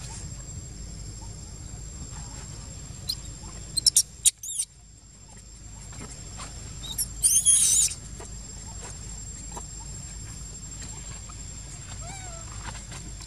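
Young monkeys squeaking: a quick cluster of short, high-pitched squeaks about four seconds in, then a longer wavering squeal a few seconds later, over a steady low background rumble.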